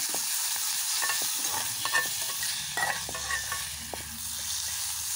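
Drumstick leaves frying in oil in a metal kadai, sizzling with a steady hiss while a spoon stirs them, scraping and clicking against the pan.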